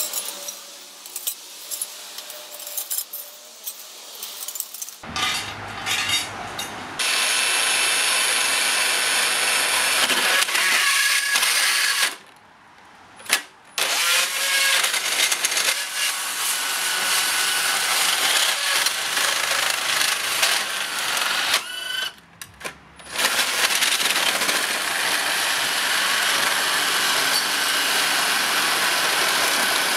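Makita XGT PB002G 40V cordless brushless band saw running and cutting into a bundle of loose tubes packed inside a metal pipe. It starts about five seconds in, runs steadily, and is stopped and restarted twice. Many of the tubes spin with the blade instead of being cut, so the teeth skate over their surface.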